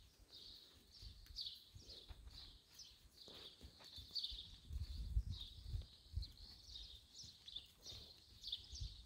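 Small birds chirping on and on, with soft, irregular thuds of a horse's hooves trotting on arena sand underneath.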